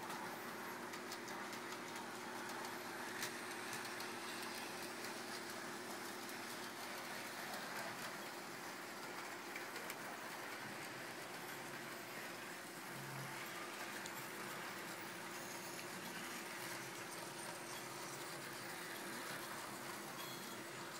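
OO gauge model trains running on the layout's track: a steady hum from the locomotive motor with the wheels running along the rails.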